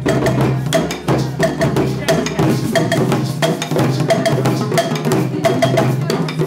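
Group hand-drum percussion playing a steady rhythm, with a bell-like note struck in quick pairs over the drums and a steady low tone underneath.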